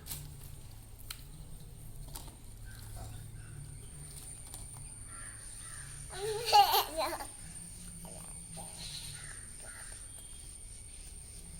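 A young child's short burst of laughter about halfway through, otherwise a quiet room with a faint steady high-pitched whine and small scattered handling sounds.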